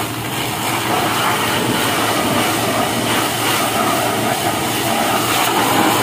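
Pressure washer jet spraying onto a forklift's engine compartment: a loud, steady hiss of water that starts abruptly as the trigger is squeezed.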